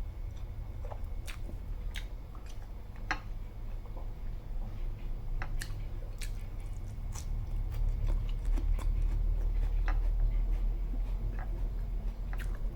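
A person chewing and biting food close to the microphone, lettuce leaves eaten in place of rice, with scattered small crisp clicks over a low rumble.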